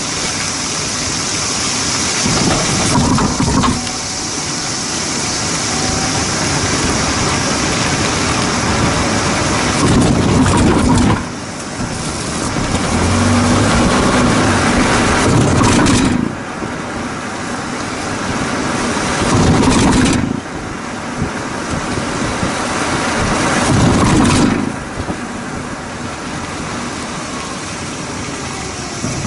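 A car driving, heard from a camera mounted under the body beside the rear wheel: a steady rush of tyre and road noise whose loudness shifts and drops suddenly several times.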